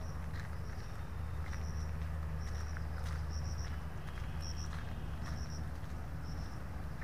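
A cricket chirping in short bursts of two or three high pulses, about once a second, over a steady low rumble and faint footsteps on a dirt path.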